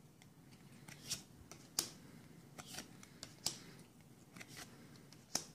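Pokémon trading cards handled one at a time in the hand, each slid off the stack and flicked to the back: an irregular string of faint, sharp card snaps and rustles, a few of them louder.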